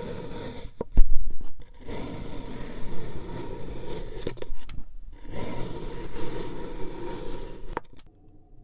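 Knife blade slicing through a block of kinetic sand: a scraping noise in three long strokes with brief pauses between, and a thud about a second in. The scraping stops just before the end, leaving a faint hum.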